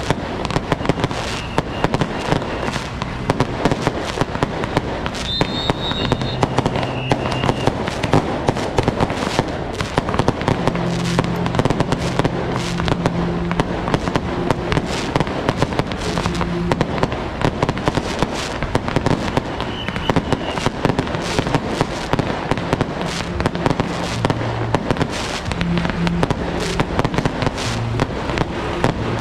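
Strings of firecrackers going off continuously, a dense, rapid crackle of sharp bangs that never lets up.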